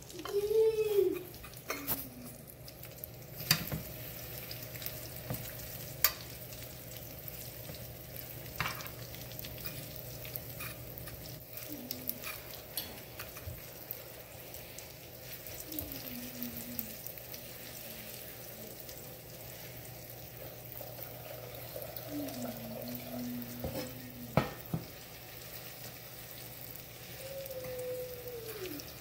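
Panko-breaded chicken cutlets sizzling steadily as they pan-fry in shallow avocado oil in a skillet. A few sharp clicks of metal tongs against the pan are heard along the way.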